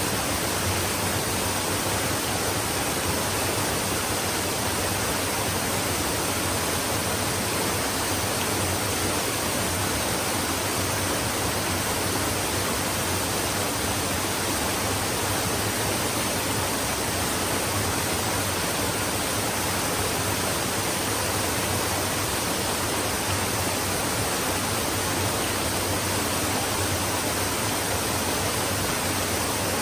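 Flowing stream: a steady, even rush of running water that does not change throughout.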